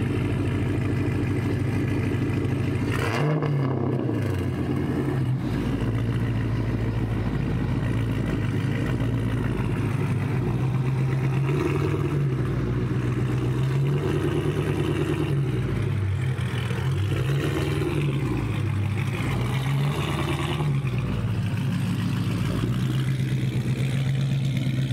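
Chrysler 300C's swapped-in 6.1L SRT8 Hemi V8 running through a 3-inch to 2.5-inch exhaust with 5-inch tips, idling and revved several times. There is a sharp blip about three seconds in and a string of revs in the second half, with the pitch rising and falling each time.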